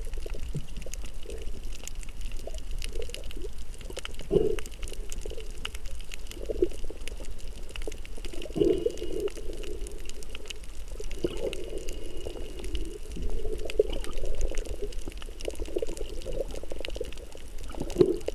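Underwater sound through a camera: irregular bubbling and gurgling water every second or two, over a steady low rumble and scattered crackling clicks.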